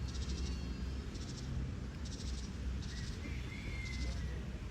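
Beach ambience: a steady low rumble of surf and wind under high, rapid-pulsed chirps that repeat about once a second, with a short whistled call about three seconds in.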